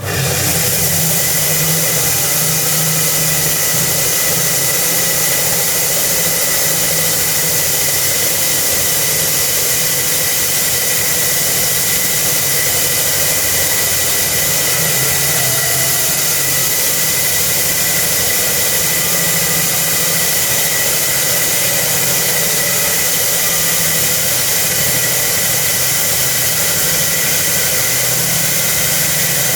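Concrete core-cutting machine running steadily, starting up abruptly at the beginning, with a constant high whine over a loud grinding noise.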